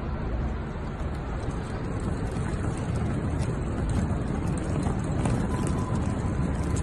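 Wheels of a trolley bag rolling over a paved floor as it is pulled along: a steady rumbling noise.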